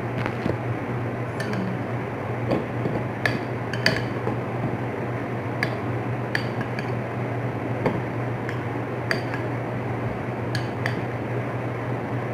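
Spoon clinking against a bowl of bakso meatball soup while eating from it: about a dozen sharp, irregularly spaced clinks. A steady low hum runs underneath.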